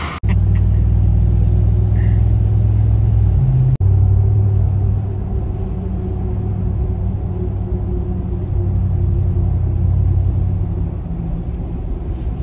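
Steady low rumble of a pickup truck driving on the highway, heard from inside the cab, with a brief cut-out about four seconds in.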